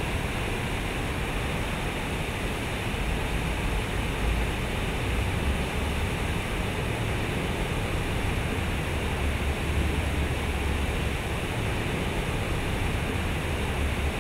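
Water from a large concrete fountain pouring from its spouts and splashing into the pool, a steady rushing hiss with a low rumble underneath.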